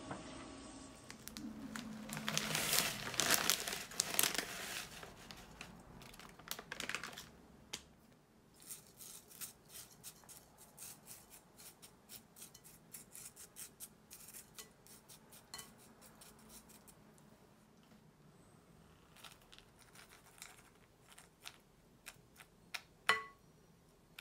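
Nuts and raisins crackling and sizzling as they fry in oil in a nonstick pan, for several seconds; then a run of light clicks and scrapes as a spoon moves them into a bowl, with one sharp tap near the end.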